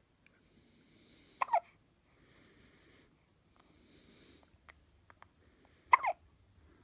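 A 17-day-old newborn hiccuping with squeaky, toy-like hiccups: two of them, about four and a half seconds apart. Each is a quick double squeak that falls in pitch, with faint breathing between.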